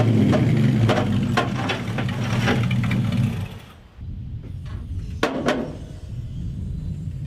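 A motor running with clicks and clacks, cutting off abruptly about three and a half seconds in, followed by two sharp metal clacks.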